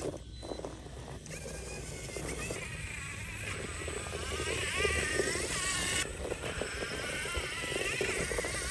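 Electric drive motor and gears of a 1/10-scale RC4WD Miller Motorsports Pro Rock Racer whining, the pitch rising and falling with the throttle as it crawls. Tyres crackle and crunch over rock underneath. The sound changes abruptly about six seconds in.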